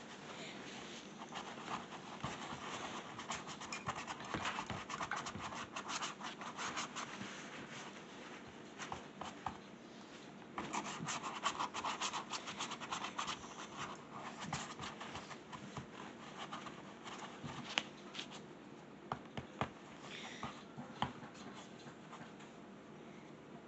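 Paper towels rustling and paintbrushes scratching on ceramic mugs and a paint palette, in two dense spells of scratching, then a few sharp taps near the end.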